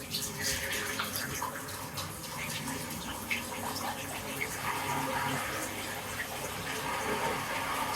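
Bath water running steadily, an even rush of water in a small bathroom.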